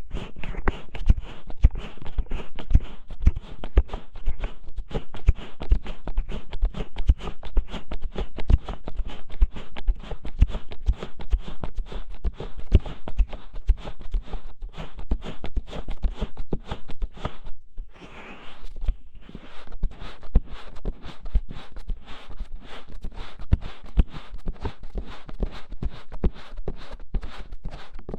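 ASMR ear scratching and ear covering on the microphone: fingertips scratching, rubbing and cupping over it in quick succession, making a steady stream of soft thuds and rustles with a brief pause about 18 seconds in.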